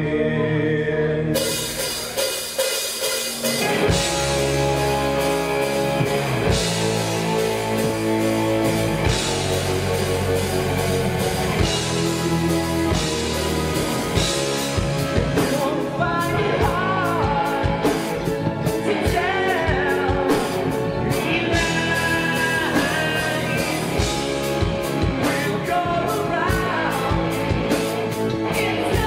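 Live rock band playing: drums, electric guitar and keyboards, with a male lead vocal singing through the second half. The music changes abruptly about a second in.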